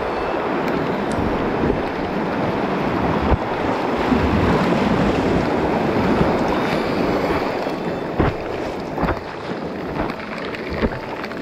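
Steady rush of moving river water with wind buffeting the microphone, easing a little in the second half, with a few sharp knocks near the end.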